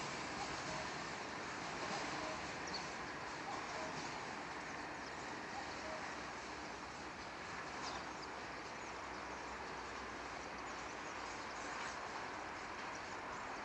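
Distant, even rumble of a long freight train of tank cars rolling away down the line, slowly fading.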